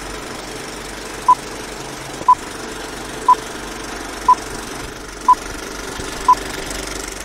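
Film-leader countdown sound effect: a steady rattling film-projector whir with a short beep once a second, six beeps in all.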